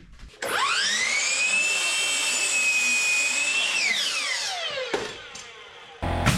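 Electric power tool motor spinning up with a rising whine, running at a steady high pitch for about three seconds, then winding down as it coasts to a stop.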